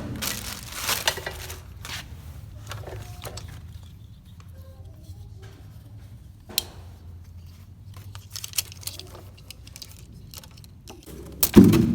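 Handling noises from unboxing a miter saw: packaging rustling and scattered clicks and knocks, with a louder knock near the end and a faint low hum underneath.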